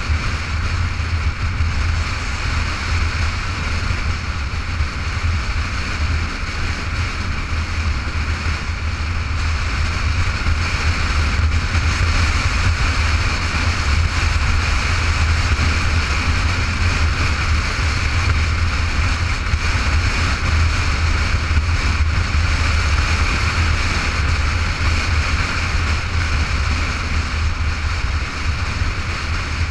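Motorcycle riding at a steady cruising speed, heard on a bike-mounted GoPro: a constant low rumble with steady wind rush over the microphone.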